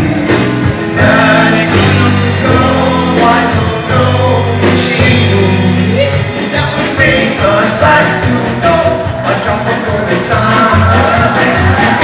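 Male vocal group singing live into microphones over a band with drums and electric guitar.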